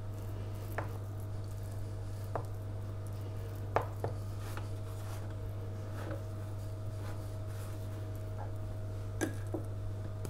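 A fork spreading a mashed sardine and fresh-cheese mixture over a slice of sandwich bread, with a few light clicks of the metal fork, the sharpest about four seconds in and again near the end. A steady low hum runs underneath.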